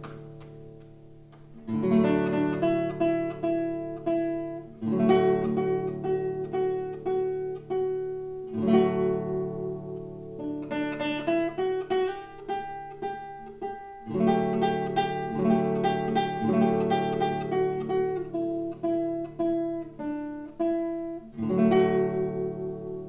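Solo classical guitar played slowly: plucked notes and chords ring and fade, and a new phrase is struck every few seconds after the last notes die away at the start.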